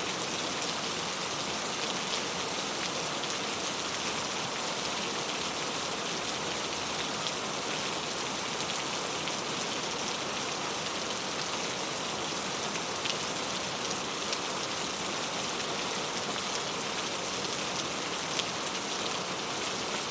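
Heavy rain falling steadily, a dense even hiss of raindrops with scattered sharper drop ticks.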